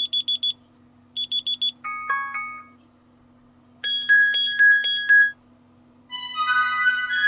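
ASUS ROG Phone 3 Strix Edition's speaker playing a string of short alarm tones, each cut off before the next: rapid high electronic beeps twice, then a short melody, then a chiming tune, then a rising run of notes near the end.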